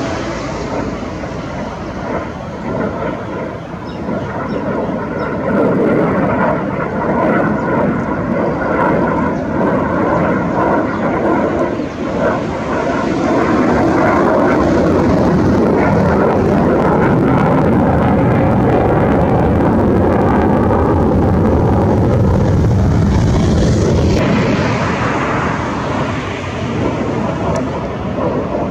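JF-17 Thunder fighter jet's single RD-93 turbofan engine roaring as the jet flies a display pass overhead. The noise builds a few seconds in, holds at its loudest through the middle with a faint whine inside it, and eases near the end.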